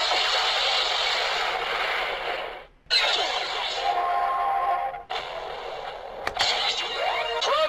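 Electronic sound effects and music from the DX Zeztz Driver transformation-belt toy, in three passages that cut off sharply between them, with steady tones in the middle one, a click in the last, and rising swoops near the end.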